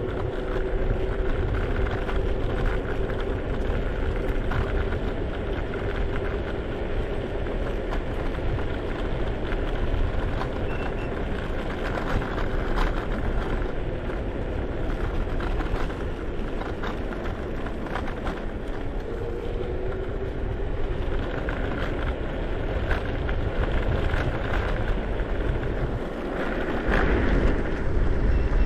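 Wind buffeting the microphone and road noise from a scooter being ridden, a steady rumbling rush. A faint whine sounds under it, fading out about eight seconds in and coming back briefly around twenty seconds.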